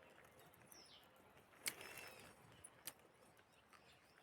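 Near silence in the open air, with a faint bird chirp near the start and two brief sharp clicks about a second apart.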